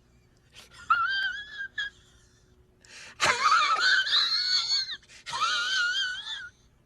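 A high-pitched, wavering wailing voice, like exaggerated crying, used as a comedy sound effect. It gives three drawn-out wails with a shaky pitch, short near-silent gaps between them, and the middle wail is the loudest.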